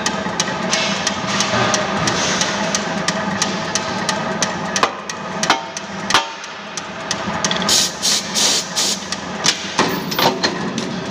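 Ball-peen hammer knocking an aluminium scaffolding profile into position on a punch press die: a series of sharp metal knocks from about five seconds in, with a cluster of clattering strikes later. Under them the punch press runs with a steady hum and regular ticking.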